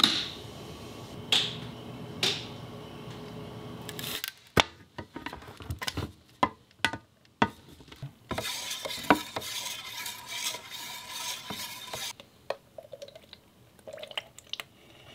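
A metal can of wood sealer being handled: a run of sharp metallic clinks and taps, then a wooden stir stick scraping and swishing around inside the can for several seconds.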